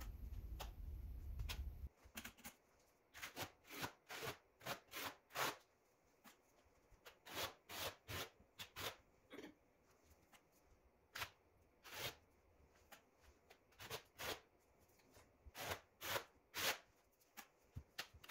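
Square-notch steel trowel scraping modified thinset across drywall in short strokes, in quick runs of scrapes with pauses between them. A low hum stops about two seconds in.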